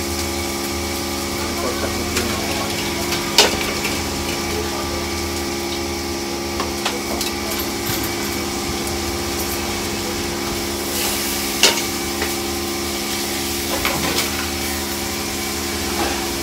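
Steady machine hum of a kitchen, with a few sharp clanks of a wire spider strainer against a steel wok as deep-fried pork is lifted out of the oil, the loudest about three seconds in and again past the middle.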